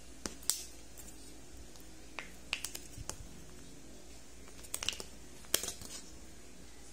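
Kinder Joy egg's foil wrapper being peeled off the plastic egg by hand: scattered sharp crinkles and crackles, with a cluster of them a little before the end.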